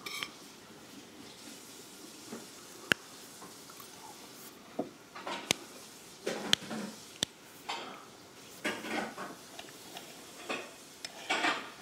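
Knife and fork on a plate as steak is cut: a few sharp clinks spread through, with softer scraping and rustling between them.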